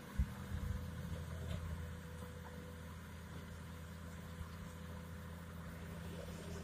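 Distant diesel engines of a Komatsu PC200-6 excavator and a Canter dump truck running steadily at a low hum, with one sharp thump just after the start.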